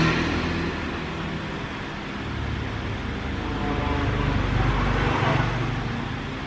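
Road traffic going past: a steady engine rumble with a low hum that swells twice, loudest at the very start and again around four to five seconds in.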